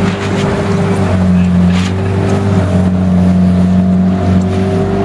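Outboard motor running steadily with an even hum, over wind and water noise.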